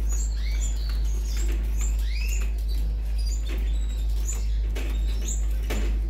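Canary nestlings begging while being hand-fed: thin, high, repeated cheeps, about two a second, over a steady low hum.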